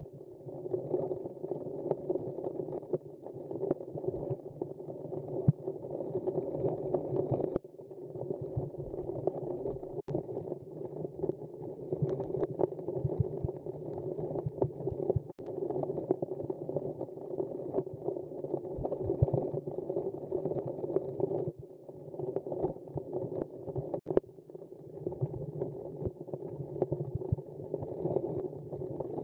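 Underwater ambience on a rocky reef: a steady muffled rumble with scattered sharp clicks, dipping briefly twice.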